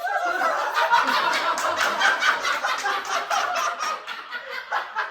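Laughter from many people at once, starting suddenly and continuing throughout, easing slightly near the end.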